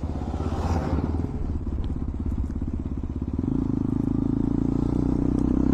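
KTM Duke 200 single-cylinder engine running through an Akrapovic slip-on exhaust with bend pipe and no dB killer, ridden on the road; the exhaust note gets louder about halfway through.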